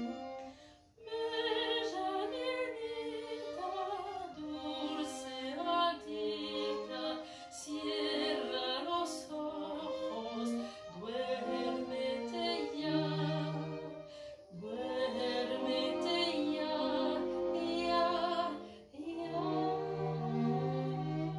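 A woman singing with vibrato, accompanied by a string ensemble of violins and cello. The music breaks off briefly about a second in and again near the end, then closes on a long held chord with a low cello note.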